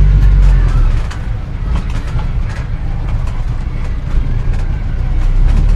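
Old car driving: a low engine rumble with clicks and rattles. It eases off about a second in and grows louder again near the end.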